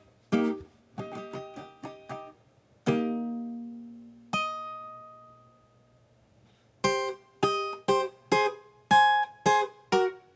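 Instrumental song intro on plucked strings: a few short picked notes, two chords left to ring out, a brief pause, then a steady rhythmic strum starting about two-thirds of the way in.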